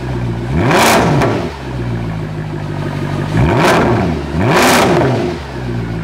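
Mercedes-AMG M156 6.2-litre V8 idling through an Eisenmann race exhaust, with three quick throttle blips that rise and fall in pitch: one about a second in, then two more about a second apart midway through. The engine is warming up on freshly installed cams, tappets and hardened cam phasers.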